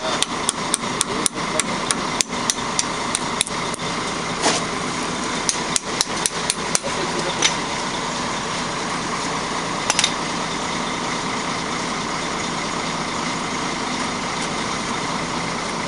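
Hammer tapping on steel at the disc brake caliper of a Mercedes-Benz Axor 1840 truck during a brake pad change. The sharp metal taps come in a quick run for about four seconds, then a shorter run around six seconds in, then a few single taps, over a steady mechanical hum.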